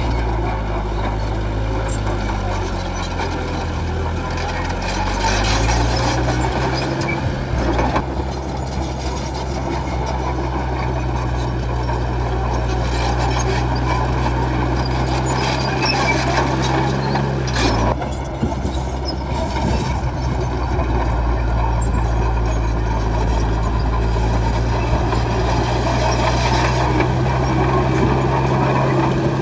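Crawler bulldozer's diesel engine running hard while working. Its pitch sags about two seconds in and recovers, then dips briefly again later on, as the machine takes up load.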